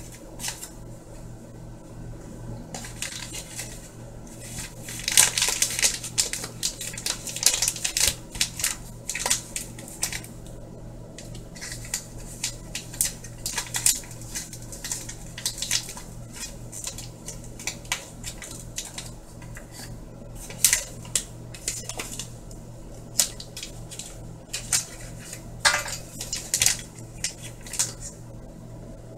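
Kitchen utensils and dishes clinking and scraping at irregular intervals, with a loud stretch of clatter about five to ten seconds in, over a steady low hum.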